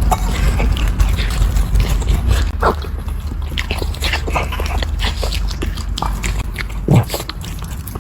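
Puppies eating from bowls, with scattered chewing and clicking sounds and a steady low hum underneath.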